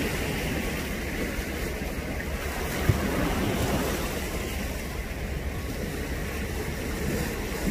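Wind buffeting the microphone over the steady wash of sea water.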